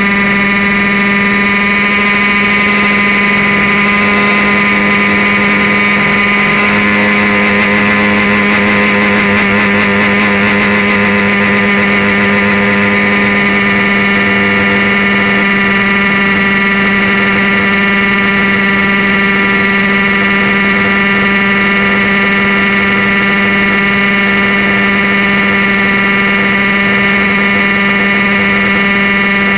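Airstar International Mongoose radio-controlled helicopter running in flight, its engine and rotors making a loud, steady whine at a constant pitch, which wavers slightly for a few seconds in the middle.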